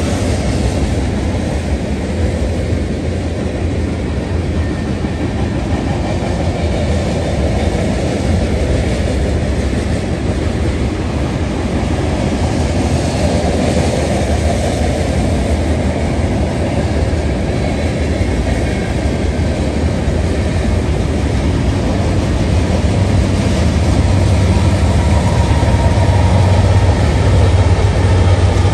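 BNSF freight train's hopper cars rolling past, a continuous rumble with rattling wheels on the rails. Near the end the deep hum of a pair of BNSF diesel locomotives grows louder as they come level.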